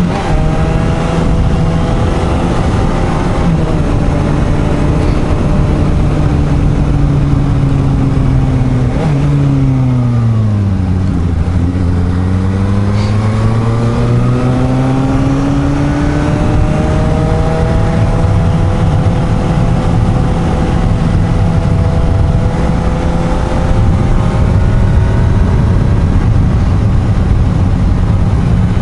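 Suzuki GSR750 inline-four engine running under way, with steady wind noise across the microphone. About nine seconds in the engine note drops as the bike slows, then rises again as it speeds back up.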